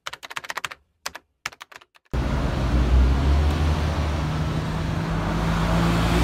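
A quick run of typewriter key clicks for about two seconds, then street noise with a steady low rumble of traffic.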